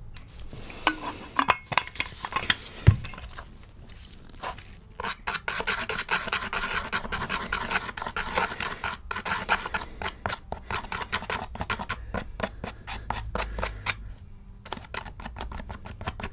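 A small metal tool scraping and stirring a paste of pink-pigmented grout and water in a plastic paint tray, in quick repeated strokes, with one sharp knock about three seconds in.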